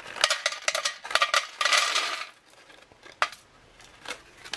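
Honey-coated peanuts poured from a foil pouch, clattering onto a stainless steel tray. A quick run of small ticks fills the first two seconds, then a couple of single ticks follow.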